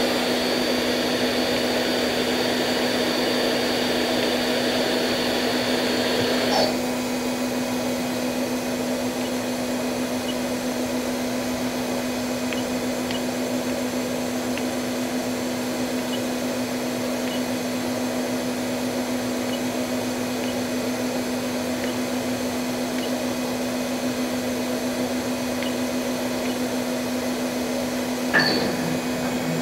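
Daewoo DMV-500 CNC vertical machining center running with a steady hum. A high whine over it stops with a click about seven seconds in, and there is another short click near the end.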